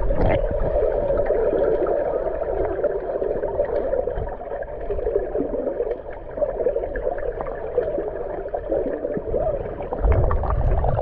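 Swimming-pool water heard through an underwater camera: a steady, muffled hiss and gurgle with small bubble ticks, swelling into a louder low rumble near the end.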